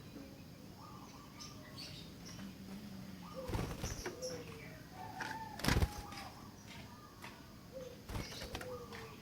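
Sooty-headed bulbul song: short, gliding whistled phrases repeated with brief high chirps among them. Three sharp knocks break in, the loudest near the middle.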